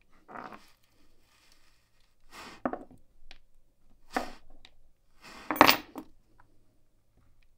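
Tweezers and small pin-tumbler pins clicking and clinking as pins are taken out of an American Lock 1100 padlock's brass plug and set into a pin tray. A few short clinks and scrapes, the loudest about five and a half seconds in.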